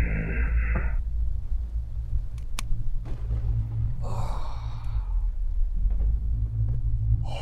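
Low, steady rumbling drone of a horror soundtrack. A breathy hiss cuts off about a second in, a single sharp tick comes about two and a half seconds in, and a long breathy sigh follows about four seconds in.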